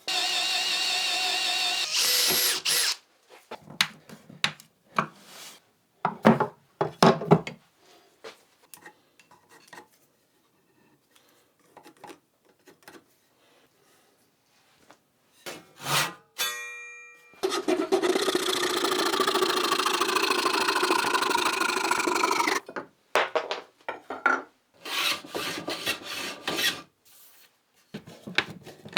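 Woodworking on the tool-chest holders: a power tool runs steadily for the first couple of seconds and again for about five seconds in the middle, with knocks, taps and short rasping or sawing strokes on wood in between and a quiet spell partway through.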